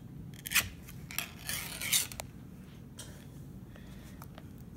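Ring-pull lid of a Spam can being peeled open: a few short metallic rasps and clicks over the first two seconds, then a faint click about three seconds in.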